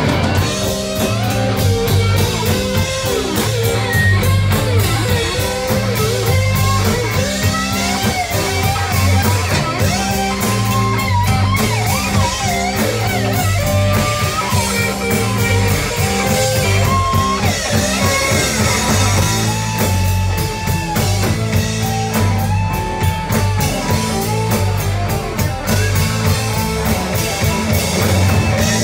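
Live Southern rock band playing an instrumental passage, with electric lead guitar lines that bend and slide over a steady drum kit, bass and rhythm guitar; several notes are held near the middle.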